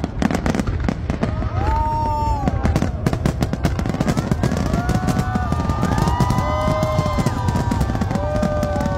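Fireworks display with a dense, rapid crackling and banging of bursting shells. From about a second and a half in, many overlapping whistling tones rise and fall over the bangs.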